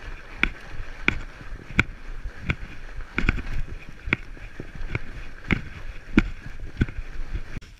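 Fatbike riding on a packed snow trail: the wide tyres roll over the snow with a steady hiss, and sharp knocks of the bike and camera come at a regular pace, about every two-thirds of a second.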